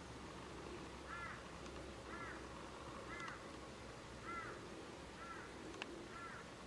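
A bird calling six times, short harsh arching calls about a second apart, over a steady background hiss. A faint click sounds near the end.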